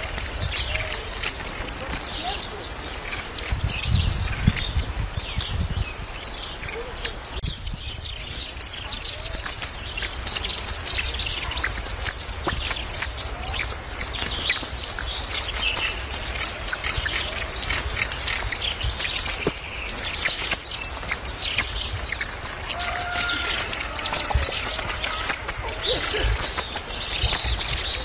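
Red-necked tanager (saíra-militar) singing: a rapid, unbroken stream of very high, thin twittering notes.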